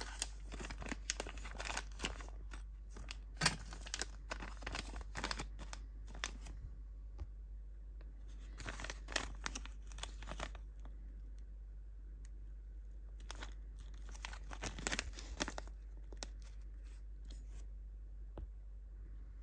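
Small clear plastic parts bags crinkling and rustling as they are handled, in three spells of crackling with quieter stretches between.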